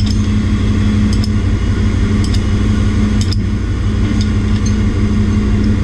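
Loud, steady drone of ship's engine-room machinery, with a strong constant low hum and a few light clicks.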